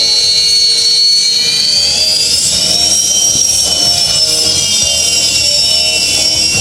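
Jet engines of a Sukhoi Su-30MKI fighter running with a high, steady whine over a low rumble. The whine rises in pitch about two seconds in and then holds.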